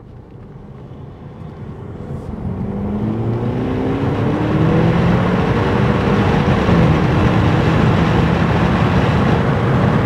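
Turbocharged 2.0-litre four-cylinder of a 2013 Audi A4 running a Stage 1 ECU tune under full-throttle acceleration, heard from inside the cabin. The engine note climbs in pitch and grows louder over the first few seconds. About seven seconds in it dips briefly as the transmission shifts up at high revs, then pulls on steadily and loud.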